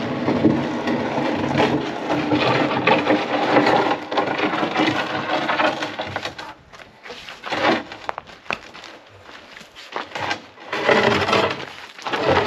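Wooden frame of 2x8 lumber scraping and sliding along the tailgate and bed of a pickup truck, a continuous grinding scrape for about the first half, then several separate wooden knocks and clunks as it is shoved further in.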